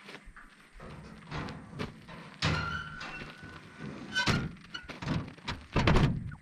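Heavy metal thunks and clanks in a loose series, one ringing briefly about two and a half seconds in, the loudest thud near the end.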